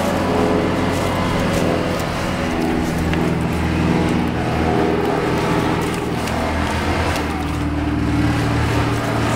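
An engine running steadily, a low even hum with a little wavering.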